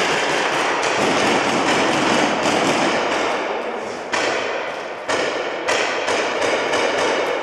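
Paintball markers firing in rapid volleys: a dense clatter of shots echoing through a large hall, starting suddenly, with sharper bursts every second or so.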